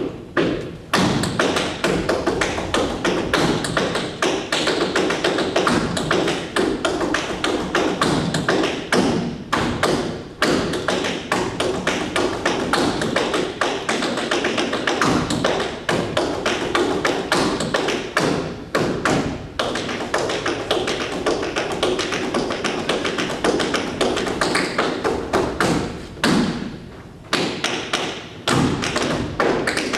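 Tap dancing: a fast, continuous stream of tap-shoe strikes mixed with heavier stomps, with a short pause about 27 seconds in.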